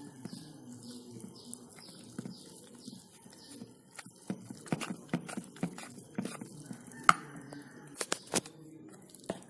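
Metal spoon stirring flour and water into a thick batter in a plastic bowl: soft stirring with irregular clicks and knocks of the spoon against the bowl, coming thicker and louder in the second half. A repeated high chirp, about three a second, sounds faintly through the first few seconds.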